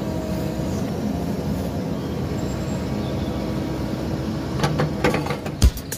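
Kubota KX080-3 excavator's diesel engine running steadily while the boom and bucket move. Near the end, sharp percussive beats of background music come in.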